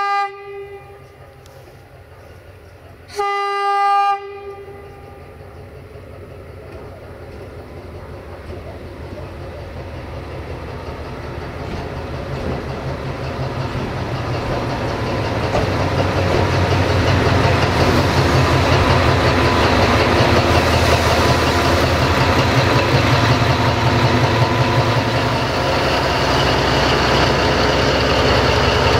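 LDH diesel-hydraulic shunting locomotive sounding a single-tone horn: the end of one blast at the start, then a second blast of about a second some three seconds in. Its diesel engine then grows steadily louder as it approaches, and runs loudly as it passes close by.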